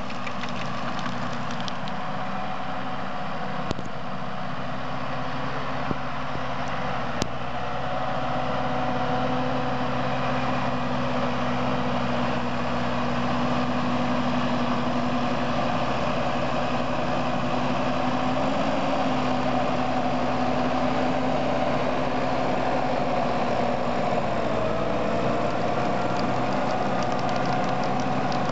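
Valtra 6250 tractor's diesel engine running steadily while it pulls and powers a Leboulch manure spreader spreading manure, getting slightly louder about eight seconds in.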